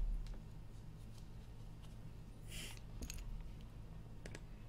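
A few scattered computer mouse clicks and key taps over a low steady hum, with a short hiss about two and a half seconds in.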